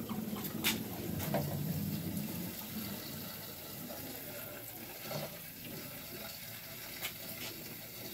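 Aquarium water churning and bubbling as DIY PVC venturis on a submersible pump's outlet draw in air and blow it into the tank: a steady rushing, splashing noise, the venturis pulling plenty of air now that their outlets have been reduced. A few short clicks come through on top.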